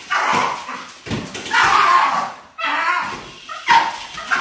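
A dog barking and whining in a run of about four loud, drawn-out calls.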